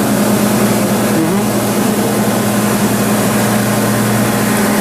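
Kekeisen UBF 3000/15 bed milling machine running with a steady mechanical hum over a noisy whir; a lower hum drops out near the end.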